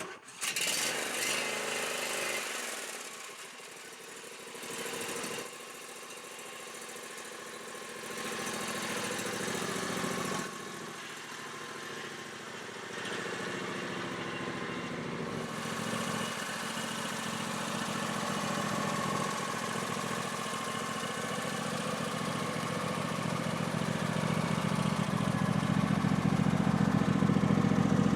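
John Deere D140 lawn tractor engine running, with the rear bagging system fitted; it grows louder over the last several seconds.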